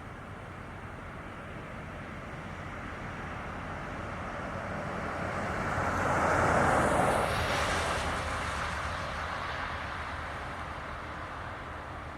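A vehicle passing by, its noise swelling to a peak about halfway through and then fading away.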